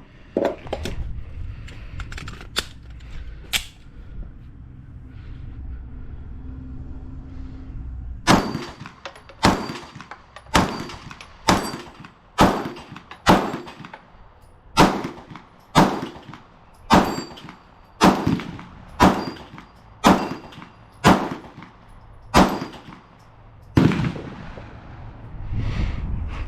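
A 9mm Glock 19–type pistol fired in slow, steady single shots, about fifteen rounds at roughly one a second, starting about eight seconds in. A few light clicks of handling come before the first shot.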